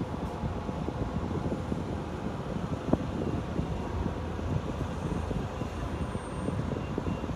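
Steady low rumbling background noise, with one sharp click about three seconds in.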